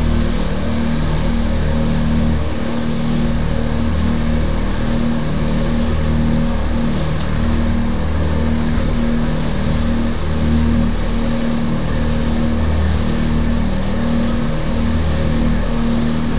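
A motor running steadily with a low, even hum and no change in pitch.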